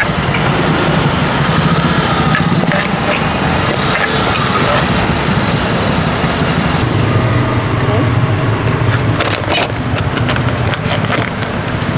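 Busy street ambience: motor traffic running and people talking in the background, with sharp clicks of a plastic takeaway tub's lid being pressed shut about nine to ten seconds in.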